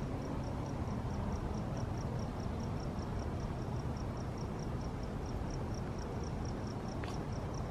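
A cricket chirping steadily, a regular train of high, short chirps at about four or five a second, over a low steady rumble.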